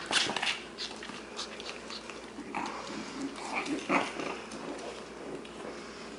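Six-week-old Shih Tzu puppies playing, with scuffling and clicks at the start and a few short puppy yips and growls between about two and a half and four seconds in.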